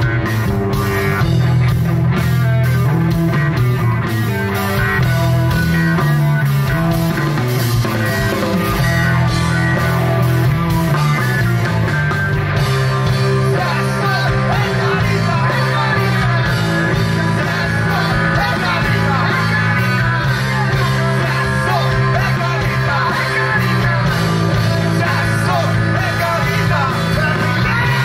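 Rock band playing live: electric guitar, bass guitar and drum kit together, loud and steady, with a wavering lead line over the band in the second half.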